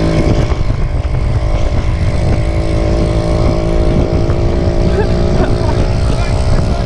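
Motorised bicycle kit engine running under way at a steady pitch, with wind rumbling on the microphone.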